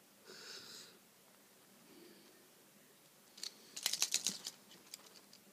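Sharp plastic clicks and clatter from a Kamen Rider Build Fullbottle toy being turned and handled in the fingers, in a quick cluster lasting about a second a little past halfway. A short soft hiss comes just after the start.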